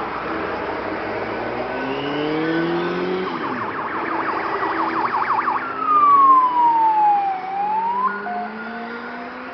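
Emergency vehicle siren over passing road traffic. A fast warble starts about three seconds in, then turns into a long wail that falls and rises again, loudest in the middle, while car engines pass with shifting pitch.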